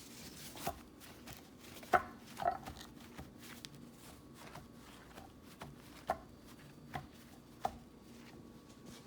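Knife cutting cauliflower on a cutting board: a run of irregular sharp knocks as the blade strikes the board, the loudest about two seconds in.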